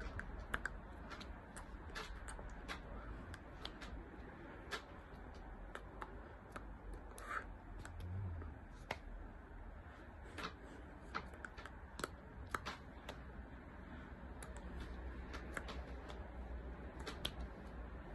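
Scattered soft clicks and taps, irregular and several a second, from a person signing in sign language: hands touching and mouth movements. A low background rumble lies underneath.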